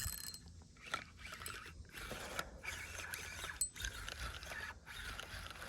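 Fishing reel being cranked in, its gears giving a rough mechanical whir in uneven spurts with a few clicks, as a hooked peacock bass is reeled toward the bank.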